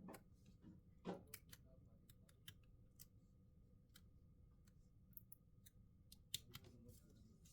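Faint, scattered light clicks and taps of small repair tools and phone parts being handled, about a dozen, irregularly spaced.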